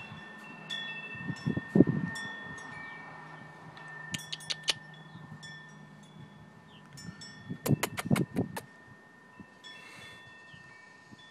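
Metal wind chimes ringing gently, several bell-like tones struck at random and ringing on over each other. A dull knock comes about two seconds in, and a short cluster of knocks comes near eight seconds.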